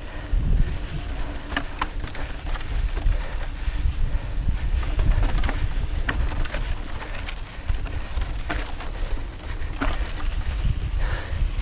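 Wind buffeting the microphone of a GoPro on a mountain bike ridden fast along a dirt and rocky singletrack, a steady low rumble. Many short clicks and rattles from the bike and its tyres over the rough trail run through it.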